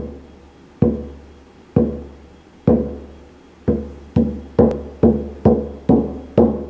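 Elk-hide hand drum struck with a padded beater: slow, even beats about a second apart, then faster at about two a second from about halfway. Each stroke is a low boom that rings out and fades.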